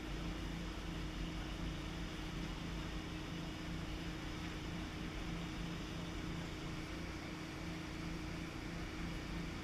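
Tour boat's engine running steadily: a low, even drone with a constant hiss over it.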